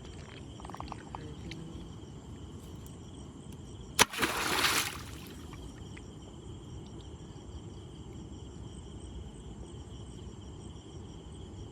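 Crickets chirping steadily at night; about four seconds in, a blade chops into shallow water at a fish with a sharp strike and a splash lasting about a second.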